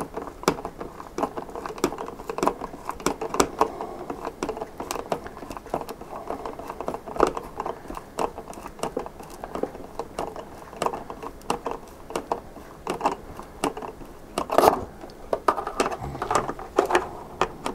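Small hand screwdriver driving a 3 mm wood screw into a model airplane's fuselage hatch, a run of irregular small clicks and creaks as the screw cuts its own threads into the hatch, with light rustling of hands on the airframe.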